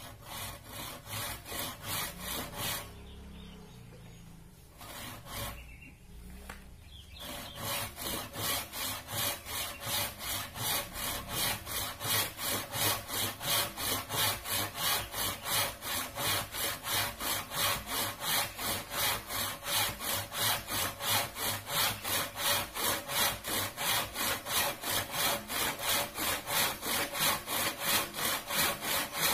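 Hand saw cutting through a bamboo pole in rhythmic back-and-forth strokes. The strokes pause for a few seconds near the start, then run steadily at about two to three a second.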